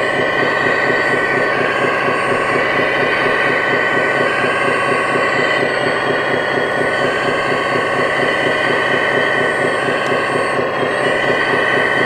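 Hydraulic pump of a scale RC Hitachi Zaxis 330 excavator running steadily as the boom and bucket dig into topsoil: a constant mechanical whine and buzz whose pitch shifts slightly a few times as the load changes.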